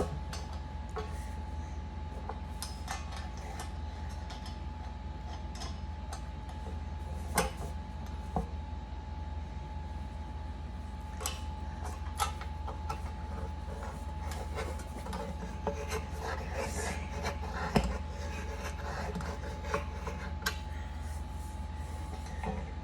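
Parts and hardware of a flat-pack projector stand being handled and fitted by hand: scattered clicks, knocks and rubbing, with sharper knocks about seven, twelve and eighteen seconds in. A steady low hum runs underneath.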